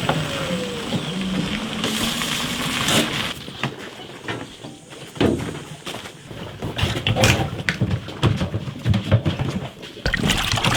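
Water sloshing and splashing in uneven bursts, with scattered knocks.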